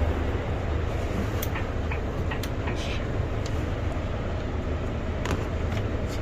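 Hyundai Xcient Pro truck's diesel engine idling steadily, a low even rumble, with a few faint clicks over it.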